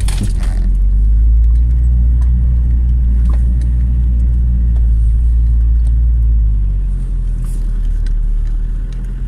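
Jeep Cherokee XJ's 2.1-litre four-cylinder turbodiesel running steadily on the move, a low drone heard from inside the cabin that drops back about six and a half seconds in. A few brief knocks from the rough track come near the start.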